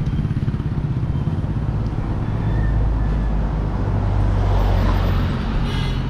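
Road traffic passing close by: a motorcycle engine, then the deeper rumble of a jeepney's engine as it overtakes, loudest from about two and a half to five and a half seconds in.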